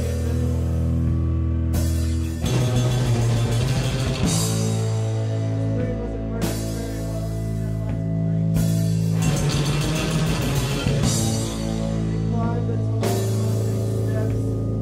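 Live rock band playing: held guitar chords that change every couple of seconds, over a drum kit with crashing cymbals.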